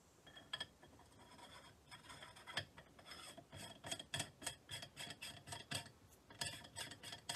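Reservoir adapter being screwed by hand into a Benjamin Bulldog air rifle's reservoir tube: the threads rasp in a run of short scrapes, about three a second.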